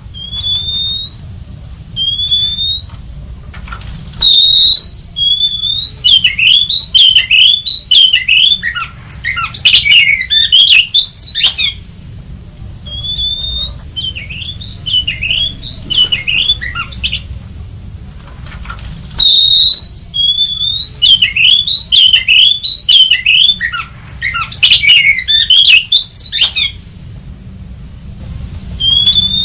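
Oriental magpie-robin singing. Short rising whistles are followed by fast, varied phrases, in two long bouts with a brief pause between them.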